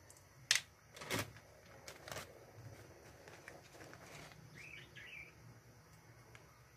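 Light clicks and knocks as a filled sardine-tin mold and plastic spoon are handled and set down on a tiled counter, two sharp clacks in the first second or so, then a few softer ticks. A short faint chirp about five seconds in.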